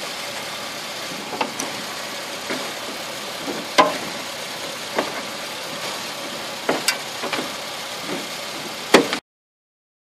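Irregular light clicks and knocks of hands and the mounting bolt working at a Chevrolet Uplander's plastic headlamp assembly, over a steady background noise. The sound stops abruptly near the end.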